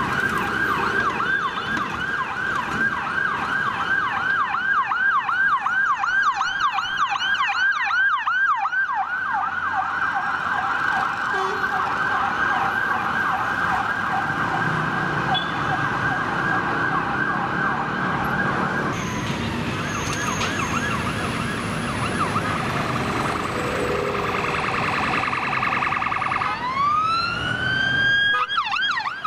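Police vehicle sirens on a fast yelp, a rapid rise-and-fall repeating several times a second, with a second siren overlapping for a few seconds. Near the end a siren winds up in one long rising wail, over city traffic noise.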